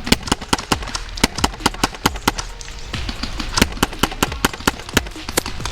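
Airsoft guns firing a rapid, irregular string of sharp pops, several shots a second.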